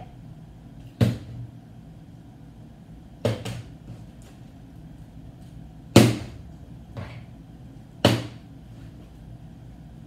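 Plastic water bottle flipped and landing on a ping-pong table: a sharp knock every two to three seconds, some with a smaller bounce right after, the loudest about six seconds in.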